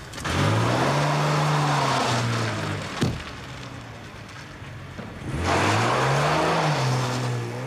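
A classic saloon car's engine revving up and easing off twice as the car drives off and comes round, with a rushing noise over it and a sharp knock about three seconds in.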